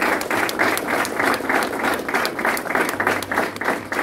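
A group of people applauding, clapping together in a steady rhythm of about four claps a second.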